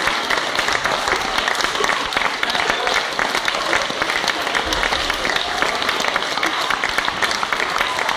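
Audience applauding: dense, steady clapping from many hands that keeps up without a break.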